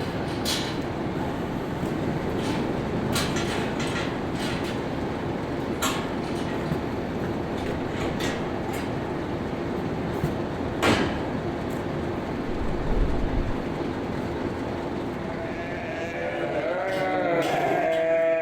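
Bulk feed delivery truck's blower running steadily, blowing layer pellets into a grain bin, with a held hum and scattered clicks and knocks. From about 15 seconds in, several sheep bleat over it.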